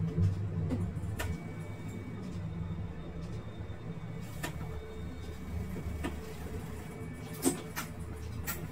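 Diesel railcar humming low and steady, heard from inside the cab, with a few sharp clicks and knocks, the loudest about seven and a half seconds in.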